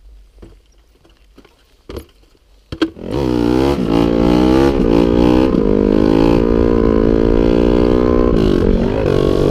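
A couple of short knocks over a quiet background. Then, about three seconds in, a Honda dirt bike's single-cylinder four-stroke engine starts loud, accelerating through the gears: its pitch climbs and drops back at each upshift before it settles into a steady cruise, easing briefly near the end.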